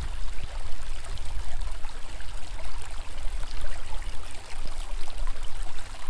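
Running water, like a stream trickling, with a strong low rumble underneath that comes and goes.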